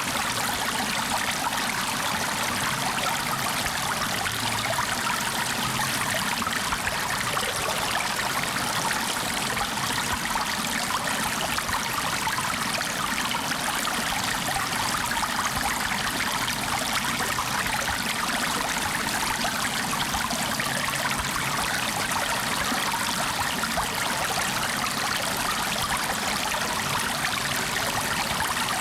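Running water of a stream or brook, a steady rushing flow with a fine trickling texture.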